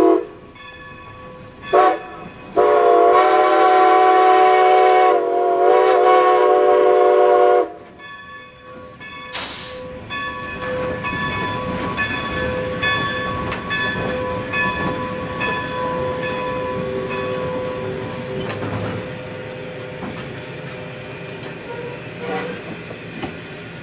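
Steam whistle of Baldwin 2-10-0 Decapod No. 90 sounding. One blast cuts off at the start, a short toot follows about two seconds in, then a long blast of about five seconds. A short burst of hiss comes about nine seconds in, then the locomotive runs with steady mechanical clatter and regular knocks, heard from inside the cab.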